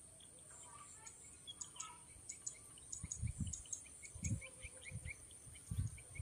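Small birds chirping in quick, short notes over a steady high insect drone, faint. From about halfway there are low, dull thumps.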